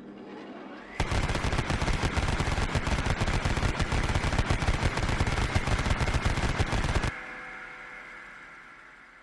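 Rapid-fire automatic gunfire sound effect. A short rising whine leads into about six seconds of continuous, very fast firing, which cuts off suddenly and leaves a fading ring.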